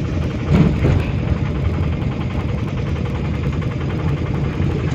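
Steady engine and road noise heard from inside a moving vehicle's cabin, with a brief louder sound about half a second in.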